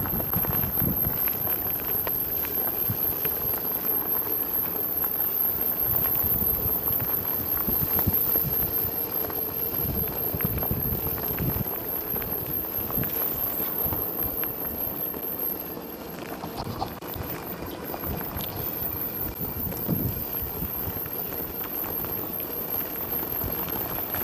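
Fiido L3 folding electric bike riding over a gravel path: its 14-inch tyres crunch on the stones, with dense, irregular knocks and rattles from the bike over the bumps.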